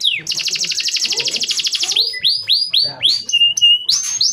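Male domestic canary singing: a fast, even trill, then about four quick notes that each sweep downward, a short held whistled note and a note rising sharply in pitch near the end.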